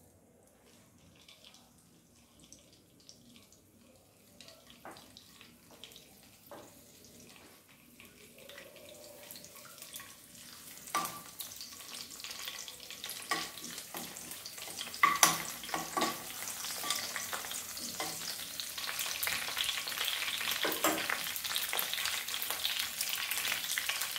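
Green chillies and curry leaves frying in hot oil in a non-stick kadai, sizzling and crackling. It starts faint and grows steadily louder through the second half. A few sharp clicks come from a steel spoon against the pan as they are stirred.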